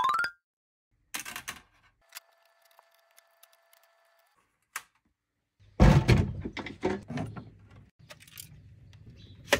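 A short rising electronic sound effect at the very start, then a cluster of sharp knocks and clatter from things being handled and set down on metal racks and trays, loudest a little past halfway and trailing into a low rumble.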